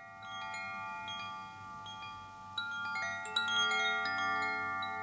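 Chimes ringing: many clear metal tones struck at irregular moments, each sustaining and overlapping the others, with a couple of brighter strikes a little past halfway.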